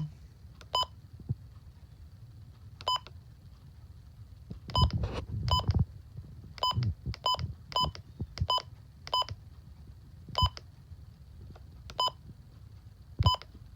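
Midland WR-120 weather radio giving a short electronic beep at each key press, about a dozen irregularly spaced single beeps, with soft clicks and thumps of the buttons being pressed.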